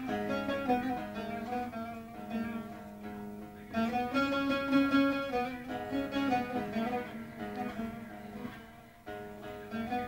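Plucked string instrument playing a folk melody in sustained phrases over a steady low drone note, an instrumental passage with no singing.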